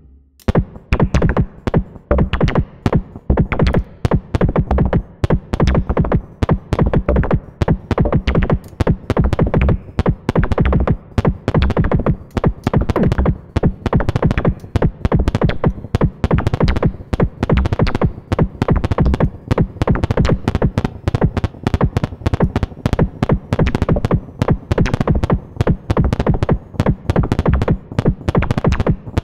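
Analog modular synthesizer played by a Klee shift-register sequencer: a fast, continuous run of short sequenced notes, starting about half a second in.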